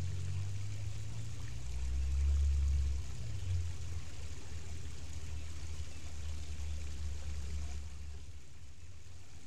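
Shallow rocky river running steadily, under a low rumble that swells about two seconds in.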